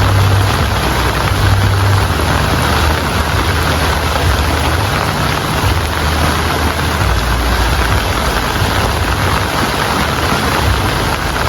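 Heavy rain falling steadily in a dense hiss, with a low rumble underneath that swells and fades.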